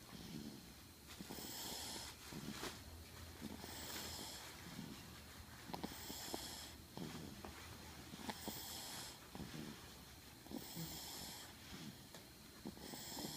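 A sleeper snoring, with a hissy breath about every two to three seconds and small clicks and snuffles in between.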